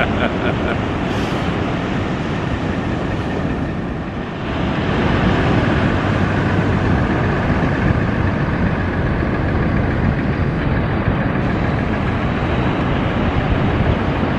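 Steady rumble of a beach-launch tractor's engine pushing a ski-boat across the sand, mixed with the wash of breaking surf. It dips briefly and grows louder about four seconds in.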